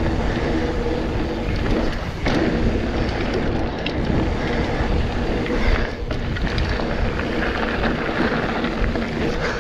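Mountain bike rolling fast along a hard-packed dirt trail: a steady rush of knobby-tyre noise and wind on the camera microphone, with a faint low hum that dips briefly twice.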